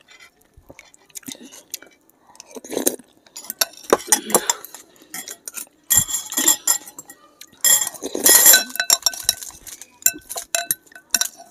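Metal forks and spoons clinking and scraping against glass bowls of noodle soup during fast eating, with many sharp clicks. A few longer noisy bursts of about a second stand out, the loudest about eight seconds in.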